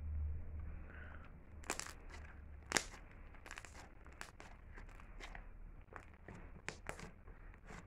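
Slime being stretched, folded and pressed by hand, giving a string of short crackling pops and clicks, the two loudest about two and three seconds in.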